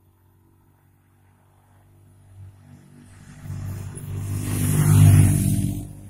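Motorcycle engine approaching and passing close by, growing louder to a peak about five seconds in, then dropping away quickly as it goes past.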